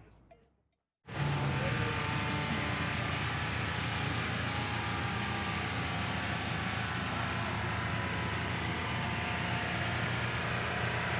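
Vehicle engine running steadily. It starts abruptly about a second in, after a moment of silence.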